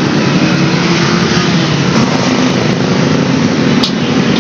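Motor scooter engine running steadily under a loud, even hiss of noise, with a few faint clicks.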